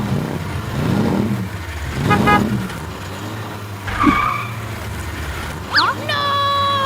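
Cartoon vehicle sound effects: engine revs that rise and fall about once a second, a short run of beeping about two seconds in, and near the end a held tone that slides down in pitch.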